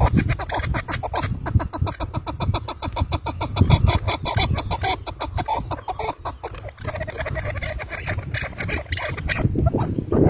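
Caged chukar partridge calling: a long run of rapid, repeated clucking notes, changing to a more drawn-out cackle about two-thirds of the way through.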